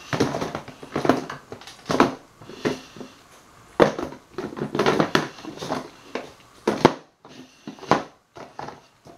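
Bottles and containers being handled and set down on a work surface: a run of irregular knocks, scrapes and rustles, sparser near the end.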